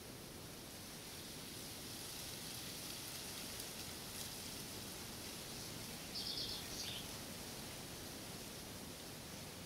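Faint steady outdoor background hiss, with a short bird call of quickly repeated high notes about six seconds in.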